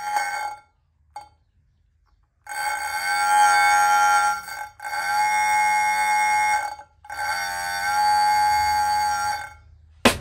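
Homemade electric bell: a small DC motor spins a striker against a tin can, giving a continuous metallic ringing in three bursts of about two seconds each with short breaks between.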